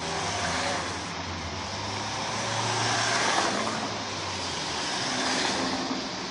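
Cars passing on the street: engine and tyre noise that swells and fades, loudest about three seconds in and again about five and a half seconds in.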